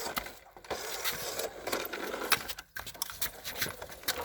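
Remote-control toy bus driving: its small electric motor and gears whir, with scattered plastic clicks and rattles.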